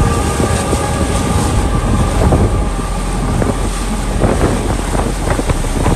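Loud wind buffeting the microphone: a heavy low rumble with irregular gusty surges.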